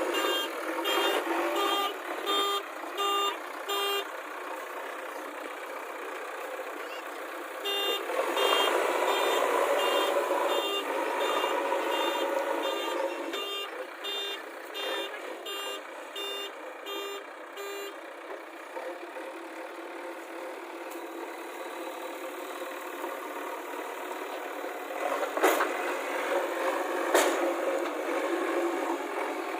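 JCB backhoe loader running, its reversing alarm beeping steadily at about one and a half beeps a second in two spells, the second starting about eight seconds in and stopping a little past halfway. Near the end the engine runs on alone and two sharp metallic knocks ring out a couple of seconds apart.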